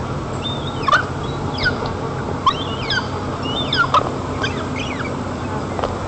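White-tailed eagle calling: a series of short, sharp high calls that drop in pitch, about one a second, over steady wind noise.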